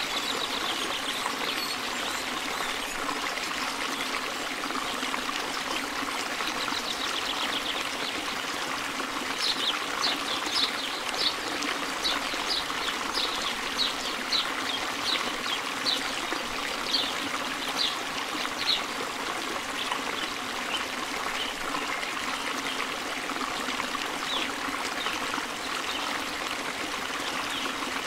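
Steady trickling, running-water sound, with a run of short high chirps from about ten seconds in, lasting some ten seconds.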